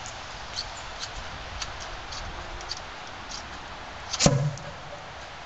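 Hairspray-fuelled PVC potato cannon firing: one loud bang about four seconds in, with a short low boom after it. Before it come light clicks about twice a second, the cannon's Coleman lantern spark igniter being twisted to make a spark.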